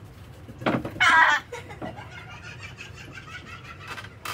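A person's short, loud vocal outburst about a second in, followed by softer vocal sounds and a few sharp clicks.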